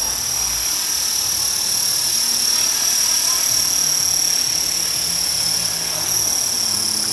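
Electric RC helicopter (Align T-Rex 450 SE) running, its motor and rotor giving a steady high-pitched whine that dips slightly in pitch near the end.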